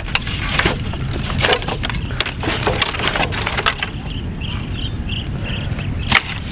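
Dry driftwood sticks clattering and cracking as they are gathered and snapped for firewood, with many sharp cracks in the first four seconds. A faint, evenly repeating high chirp comes in near the end.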